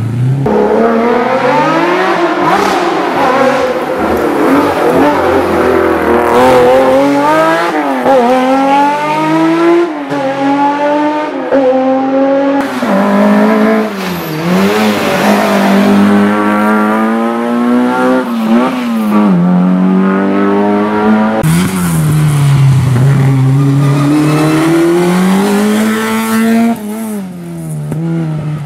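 Historic rally car engine revved hard: its pitch climbs steeply, then drops sharply on lifts and gear changes, several times over. It stays loud and close throughout.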